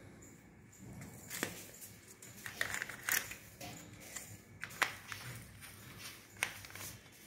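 Small plastic bottles and their screw caps being handled: four sharp plastic clicks and knocks about a second and a half apart, with light rustling in between.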